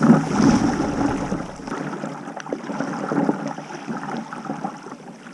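Water sloshing and splashing around a kayak, with a few light knocks.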